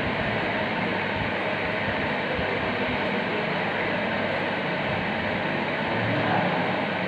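Steady rushing background noise with no clear strokes or rhythm.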